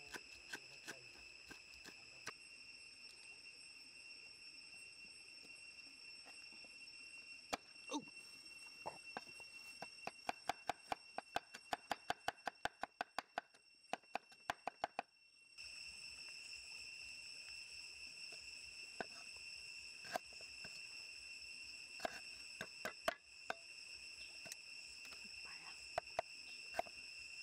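A heavy cleaver chopping garlic, chilies and herbs on a round wooden chopping block: sharp knocks, with a fast run of about four to five quick chops a second in the middle. A steady high insect buzz runs underneath.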